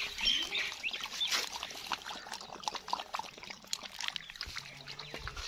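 Pointer dog lapping up milk, a quick irregular run of wet licking clicks.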